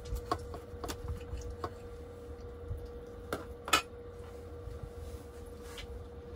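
Knife and fork clinking and scraping on a plate while cutting food: a handful of sharp clinks, the loudest about three and a half seconds in. A steady faint hum runs underneath.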